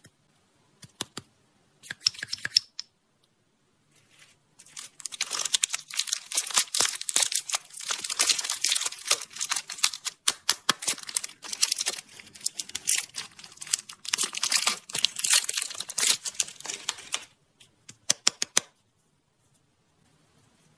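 Candy wrapper being torn open and crinkled by hand: a long dense run of crackling and rustling from about four seconds in until near the end, with a few short clusters of clicks before and after.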